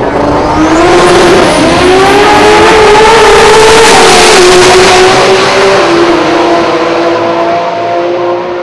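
Two drag-racing cars launching from the start line and accelerating hard down the strip. The engine pitch climbs and drops back at gear changes, about two seconds in and again near six seconds, and the sound fades toward the end as the cars run away.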